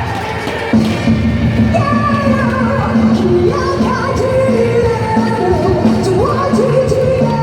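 Live pop-rock band music over a stadium sound system, with a sung melody line coming in about two seconds in.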